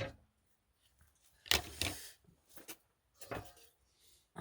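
A few short rustles and knocks of cooking things being handled. The loudest comes about a second and a half in, with smaller ones near the end.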